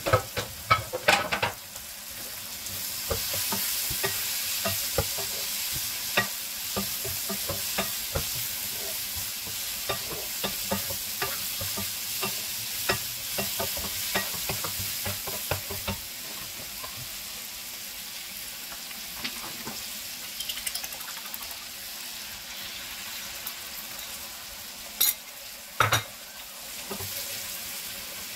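Shredded cabbage and carrot sizzling in a hot metal pan as a wooden spatula stirs and scrapes them, with frequent light knocks of the spatula on the pan. The sizzle is stronger in the first half, and there are louder clatters near the start and again near the end.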